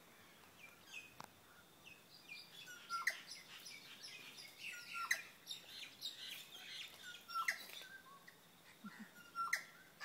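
A songbird in a tree singing a repeated phrase about every two seconds: a sharp click run into short whistled notes, with softer chirps in between.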